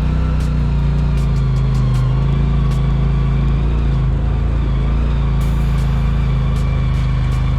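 Polaris RZR Pro XP side-by-side's engine running at a steady speed, a constant drone with scattered sharp clicks and rattles.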